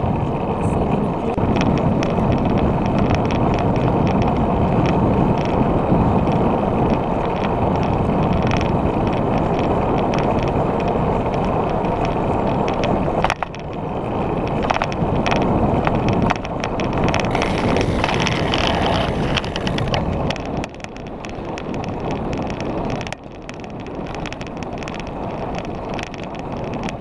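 Road bike in motion: wind rushing over the handlebar-mounted camera's microphone together with tyre and road noise, with scattered small clicks. The noise drops abruptly about halfway through and twice more near the end.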